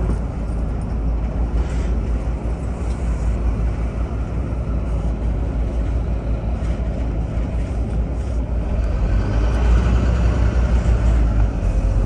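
Inside a double-decker bus on the upper deck: a steady low engine rumble with road noise, getting a little louder about ten seconds in.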